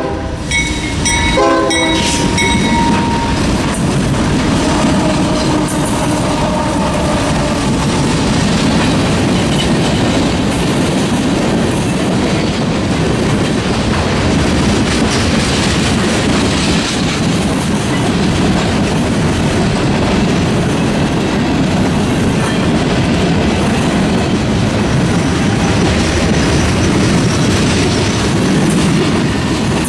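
Diesel freight train passing: the locomotive's air horn sounds in the first few seconds, then the steady rumble and clickety-clack of railcars rolling by.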